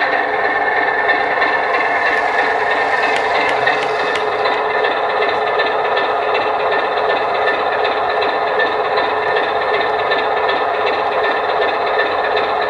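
Diesel locomotive engine sound from a DCC sound decoder, idling steadily and played through the model's small speaker, so it is thin with little bass. About two seconds in, a burst of hiss lasts roughly two seconds.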